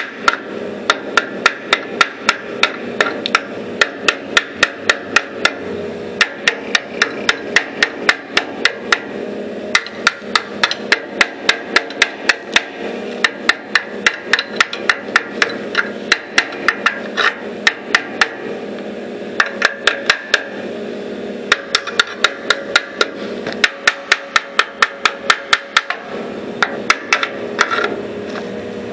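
A hammer striking the steel of a riding mower's welded front axle, sharp ringing metal blows about three a second in runs broken by short pauses, over a steady low hum.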